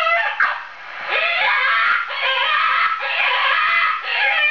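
Recorded jackrabbit distress call played loudly through a homemade electronic predator caller: a run of shrill, wavering screams, each about a second long.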